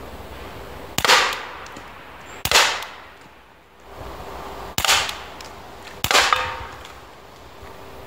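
Walther CP99 Dual 4.5 mm CO2 air pistol fired four times: sharp pops at uneven intervals of one to two seconds, each trailing off briefly.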